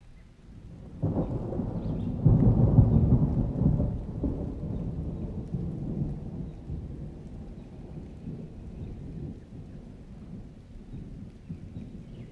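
Rain and strong wind outdoors, with a low rumble that starts suddenly about a second in, is loudest around two to four seconds, and slowly fades away.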